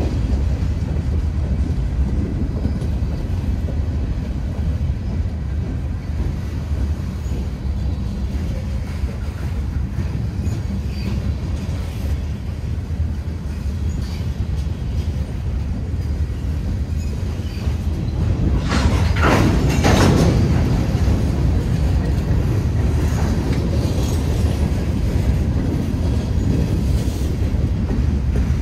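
Norfolk Southern freight train's cars rolling past with a steady low rumble and wheel clatter, and faint high squeals now and then. About two-thirds of the way through, a louder burst of noise lasts a second or two.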